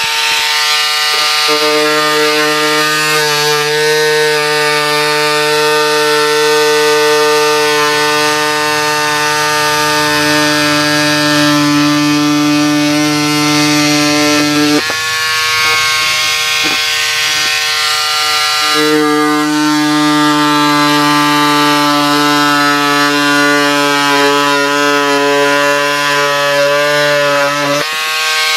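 Pink Power cordless electric scissors running, a steady buzzing motor whine as the blades cut through cardboard. About halfway through, the tone thins for a few seconds with a few clicks, then settles again.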